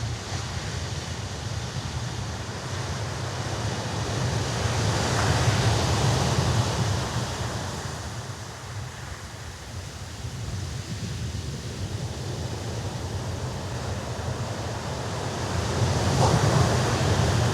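Sea waves washing ashore in a continuous rushing surf that builds into two louder breaking swells, about five seconds in and again near the end.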